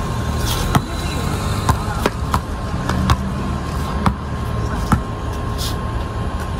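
Basketball bouncing on a concrete driveway: single sharp bounces, about one a second and unevenly spaced, over a steady low rumble.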